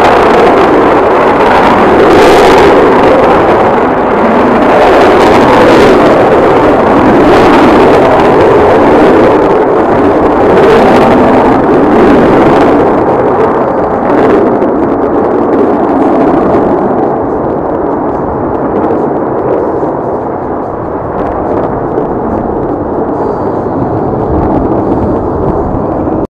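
Rockwell B-1B Lancer's four General Electric F101 turbofans at takeoff power: a loud, rough, crackling roar. Over the last ten seconds it fades and grows duller as the bomber climbs away, and it cuts off abruptly at the end.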